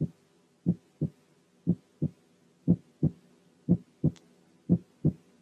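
Normal heart sounds at a rate of 60 a minute, heard through a stethoscope: lub-dub pairs of the first and second heart sounds, one pair a second. The two sounds of each pair come close together, followed by a longer quiet gap, which is diastole.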